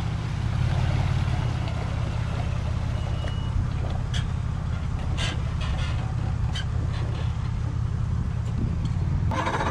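An engine idling steadily, a low even hum with a few faint clicks over it.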